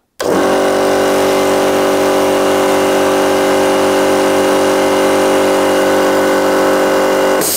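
SGS SC50V twin-cylinder air compressor with a 3 hp motor starting up at its pressure switch and running steadily on its first test run after assembly. It cuts off abruptly near the end when switched off.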